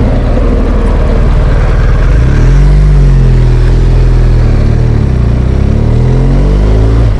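BMW R1200GS Adventure's boxer-twin engine under way: about two seconds in its pitch climbs as it accelerates, then falls and climbs again with the throttle.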